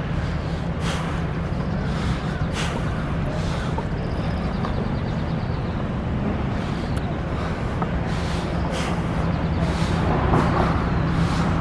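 Steady road-traffic rumble from cars and trucks on a city street, with a few short, sharp ticks scattered through it.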